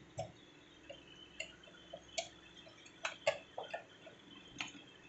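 Light, irregular clicks and taps of plastic and metal parts as a TVS RP 3220 receipt printer's circuit board and print mechanism are handled and worked loose, the sharpest pair of clicks about three seconds in.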